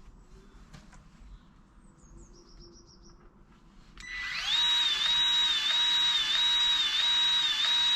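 Faint high chirps, then about halfway through a Milwaukee M12 cordless grease gun starts up, pumping grease into the plough: its motor whine rises and then runs steadily, dipping in pitch about twice a second.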